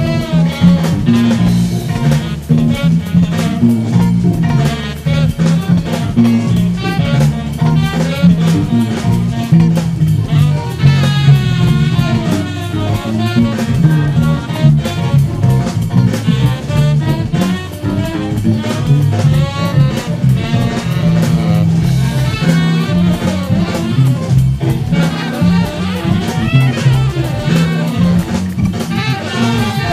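Four-string electric bass guitar playing a busy funk bass line along with a recorded band of saxophone, drum kit and guitar. The music is continuous and loud.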